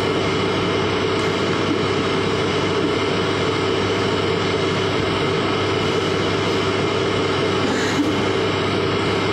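Steady droning room noise with a low hum throughout, without clear voices: the hall's background noise picked up by a distant camera microphone with no microphones on the actors.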